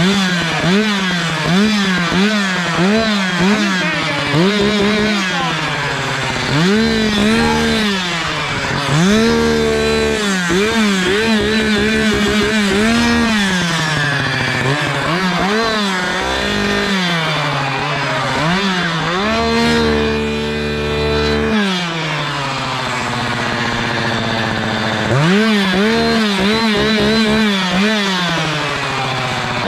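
Two-stroke Echo chainsaw revved in repeated blips, its engine pitch jumping up and dropping back. Quick blips come about twice a second at first, and there are longer held revs around the middle.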